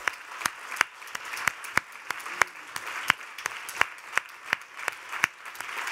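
Audience applauding. One person's sharp claps close by stand out above the crowd's steady clapping at about three a second.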